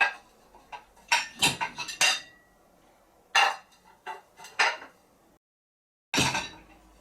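Dinner plates clattering and clinking as they are handled and lifted out of a compact dishwasher's rack: a string of sharp knocks, with a brief total dropout about five seconds in, followed by one loud clatter.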